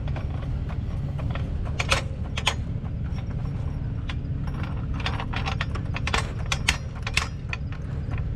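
Irregular metallic clicks and clacks from a jack being worked into place under a pickup truck, over the steady low hum of an idling engine.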